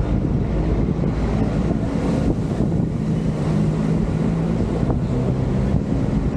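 Wind buffeting the microphone over a running engine, whose drone holds steady and shifts slightly in pitch now and then.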